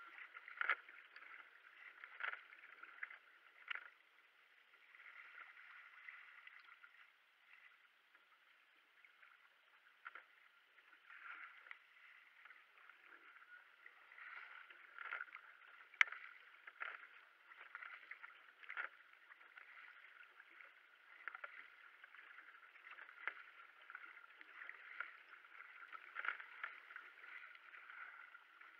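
Kayak paddle strokes dipping and splashing in the water, irregularly every second or two, over a steady wash of water along the hull. A single sharp click about halfway through.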